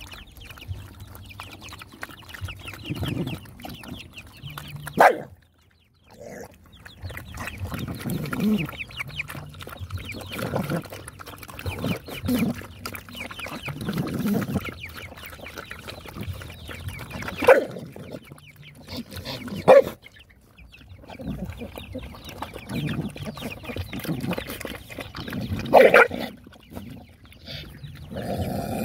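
Several dogs lapping and slurping thin, soupy food from a shared basin, with steady wet chewing and licking. Four short, louder sharp sounds stand out over it.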